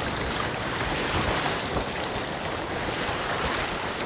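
Wind blowing across the microphone over choppy sea water washing along the side of a boat, a steady rushing noise.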